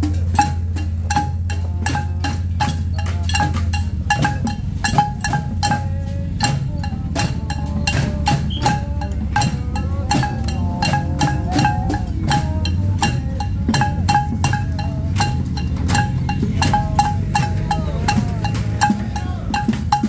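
Improvised tin band: metal pots, pans and containers beaten with sticks in a steady marching beat of about three strikes a second, each strike leaving a ringing metallic note.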